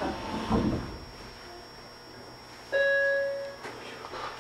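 A single chime note rings inside a standing train car for about a second and dies away, with a short clatter near the start and a couple of faint knocks after the chime, over a low steady hum.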